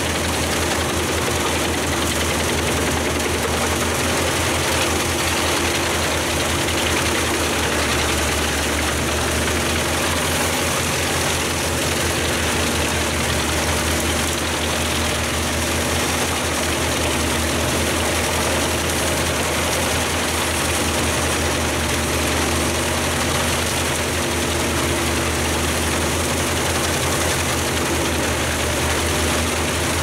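Pezzolato PTH 900 M drum wood chipper, powered by its IVECO C87 diesel engine, running steadily at working speed while chipping branches. The result is an unchanging engine drone under the rushing noise of the drum and the chips being blown out of the discharge spout.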